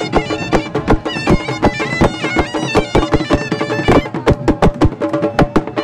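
Loud folk dance music: a reedy wind instrument plays an ornamented melody over a steady drone, driven by a quick drum beat of several strokes a second.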